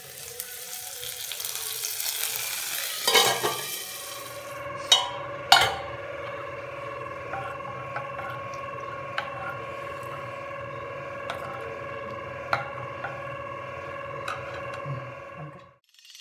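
Hot oil tempering of dry red chillies and mustard seeds poured from a small tadka ladle into buttermilk rasam, sizzling for about three seconds, followed by a few sharp metal knocks. Then a spoon stirring the rasam in a non-stick kadai with occasional small clinks, over a steady humming tone that cuts off suddenly near the end.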